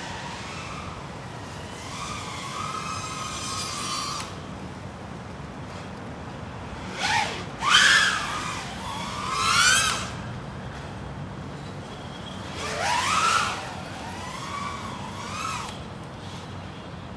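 TANQ S 3.5-inch micro FPV quadcopter's motors and props whining in flight, the pitch sweeping up and down several times as the throttle is punched, loudest about eight seconds in.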